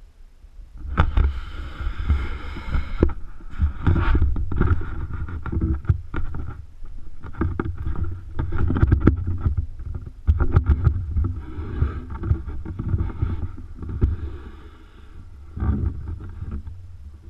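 Heavy low rumbling and knocking on the action camera's microphone, starting about a second in and surging on and off with many sharp knocks, easing near the end.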